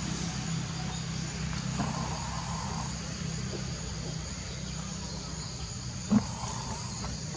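Steady high-pitched insect chorus over a constant low hum, with one short sharp sound about six seconds in.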